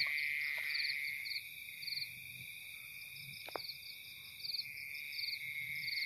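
Night chorus of frogs and insects: a steady high insect drone with short pulsed frog calls repeating over it. A single faint click sounds about midway.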